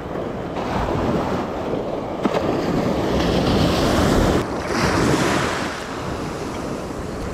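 Ocean surf breaking and washing up the beach around the feet, with wind buffeting the microphone. A wave breaks and rushes in, loudest about four seconds in.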